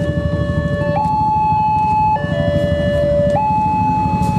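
Railway level-crossing warning alarm sounding a two-tone electronic signal, a higher and a lower note alternating about every second and a quarter, over a steady low rumble.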